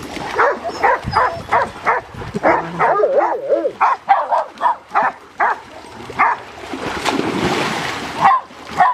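Dogs barking over and over, about two to three barks a second, with a wavering whine in the middle. Later comes a rush of water as a dog jumps into the swimming pool.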